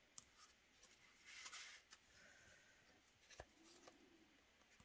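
Near silence: room tone with a few faint clicks and knocks and a brief soft rustle about a second and a half in.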